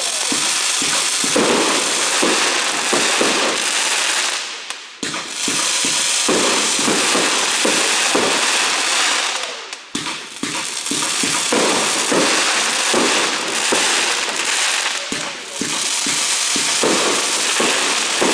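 Fireworks going off in quick succession: dense rapid pops and bangs, with brief lulls about five and ten seconds in.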